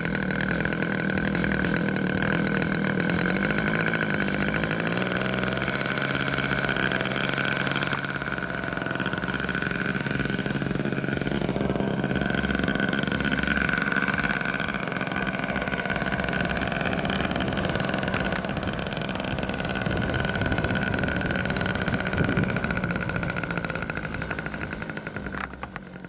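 Engine of a radio-controlled scale Cessna 182 model airplane running steadily at high power, its low tone wavering in pitch in the first few seconds. The sound drops away sharply near the end.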